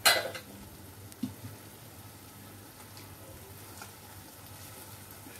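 Eggs frying gently in oil and masala in an uncovered pan, giving a faint, steady sizzle. A short, loud knock comes right at the start, with a couple of soft taps after it.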